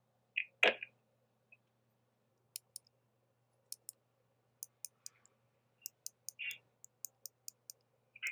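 A dozen or so sharp, light clicks at irregular spacing, starting about two and a half seconds in, over a faint steady hum, with a brief short noise near the start.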